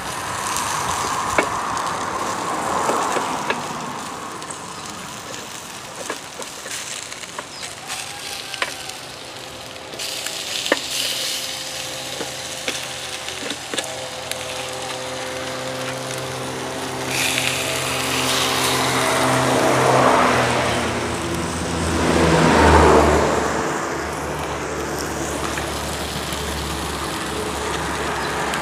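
Food sizzling and frying in a pan, with occasional light clicks and knocks. From about the middle on, a motor vehicle's engine runs in the background, swelling louder twice near the end.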